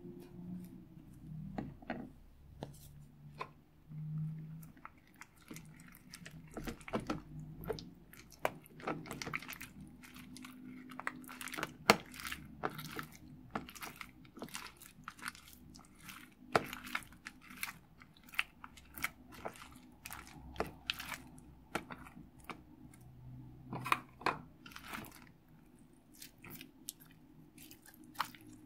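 Clear slime being stirred with a spatula in a plastic tub and then worked by hand, giving many small sticky clicks and squelches as it thickens into a clump, with an occasional sharper click of the spatula against the tub.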